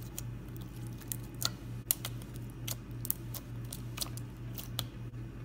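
Clear sequin-filled slime being squeezed and poked by hand, giving a scattering of sharp little clicks and pops. A steady low hum runs underneath.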